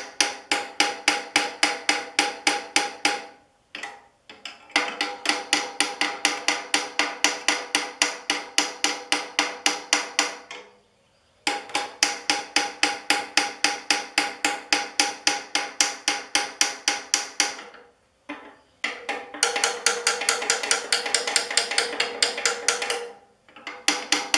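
Steel hammer tapping rapidly on a tiller's tine hub and the gear puller tightened on it, about four ringing metal strikes a second in runs of several seconds with short pauses between. The blows are meant to jar loose a tine that is stuck on its axle and has never been off.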